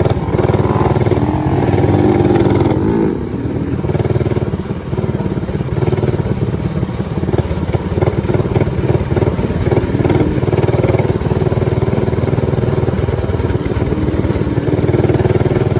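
Modified Motovox minibike's Predator 224cc single-cylinder engine running under load while riding. The engine eases off briefly about three seconds in, then pulls again.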